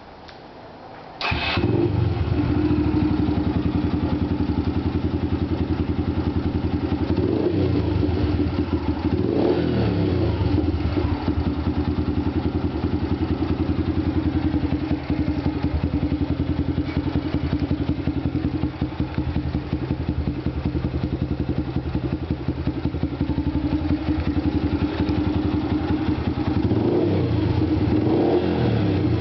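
Yamaha YBR Factor's single-cylinder four-stroke engine starting up about a second in and then idling through an aftermarket Roncar round aluminium exhaust, with a few short revs around eight to ten seconds in and again near the end.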